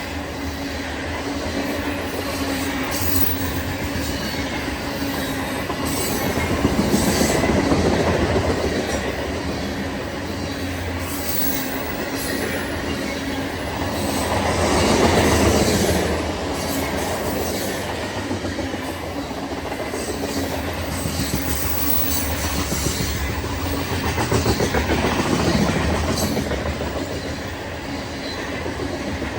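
Cars of a loaded grain train rolling past on the rails in a steady rumble of wheel noise that swells louder three times.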